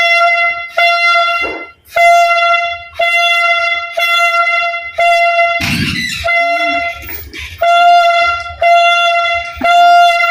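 A toy party horn blown in a string of about ten short toots, roughly one a second, each at the same single bright pitch. A short, louder noisy burst breaks in a little after halfway.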